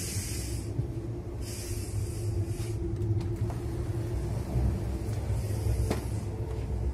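Stadler ESh2 double-decker electric train heard from inside while running: a steady low rumble with a faint hum, and a hiss that swells and fades every couple of seconds, with a few light clicks.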